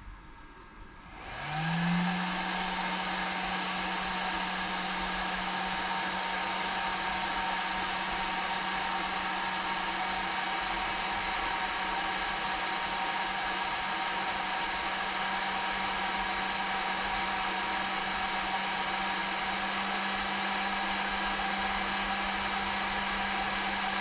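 ISDT FD-200 battery discharger's cooling fans spinning up about a second and a half in, their pitch rising quickly, then running steadily with a low hum and a higher whine over a rush of air while it discharges at about 25 amps.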